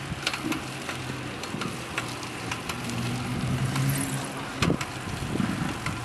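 Bicycle being pedaled, making an abnormal noise whose cause the rider cannot find: irregular sharp clicks over a low drone that comes and goes.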